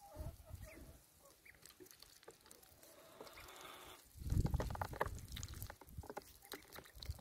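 Welsh Harlequin ducklings, about ten days old, peeping softly, with many small clicks of bills nibbling at dandelion leaves and dabbling in a water bowl. A louder low rumbling thump comes about four seconds in.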